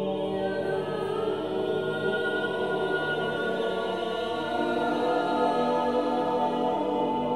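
Unaccompanied choir singing, several voices holding long overlapping notes, with a higher voice line coming in about a second in.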